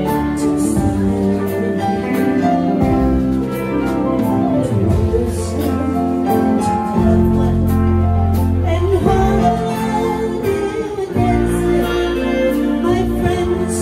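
Live band music with a steady beat: a woman singing through a microphone over electronic keyboard, bass and drums.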